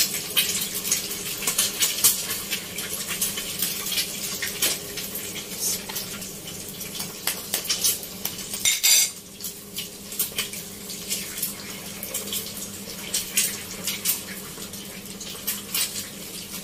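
Eggs frying in hot oil in a pan, crackling and spattering, mixed with taps of a metal spoon on an eggshell and on dishes. There is a louder burst of noise a little before nine seconds in, and a steady low hum underneath.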